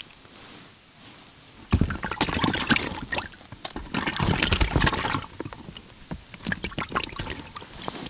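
Water sloshing and splashing with many small clicks and knocks, starting about two seconds in and easing off after about five seconds.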